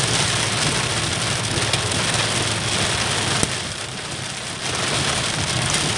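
Heavy rain beating on a car, heard from inside the cabin, with the car's low hum underneath. The rain noise drops briefly about halfway through, then comes back.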